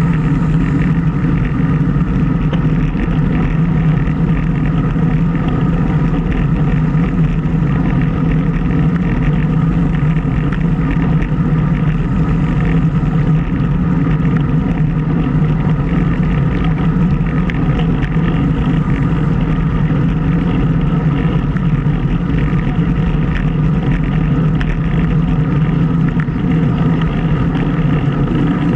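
Steady, loud wind rush and road noise on the microphone of an action camera moving at riding speed into a headwind.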